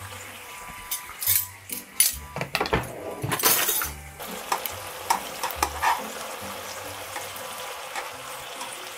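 Spaghetti and bacon boiling in water in a frying pan, with clinks and knocks of a spoon and utensils against the pan, most of them between about one and four seconds in, then chopsticks stirring the pasta in the bubbling water.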